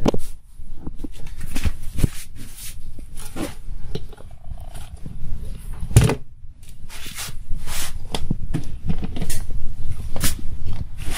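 Plastic lid of a fermentation bucket being handled and pried off: irregular knocks, clicks and scrapes of plastic on plastic, with a sharper knock about six seconds in.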